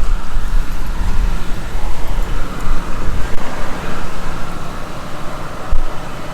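Heavy diesel engines of the concrete pump truck and mixer trucks running, a dense low rumble, with a short low thump near the end.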